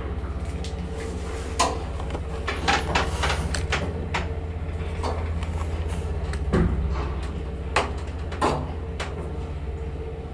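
1977 ZREMB traction elevator descending at about 1 m/s: a steady low hum from the machine, with scattered clicks and knocks as the doorless car runs past the landing doors in the shaft. It grows quieter near the end as the car comes in to the ground floor.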